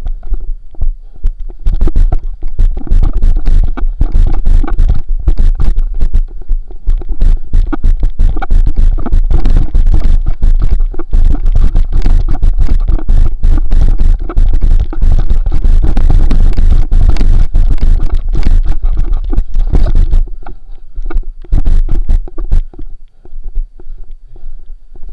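Heavy rumbling and scraping from wind and movement on a body-worn action camera's microphone as the wearer runs, with rapid knocks from footfalls and jostling. It dies down to scattered knocks about twenty seconds in.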